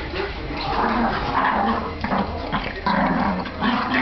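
Two dogs play-fighting, with repeated short growls in bursts of about half a second each.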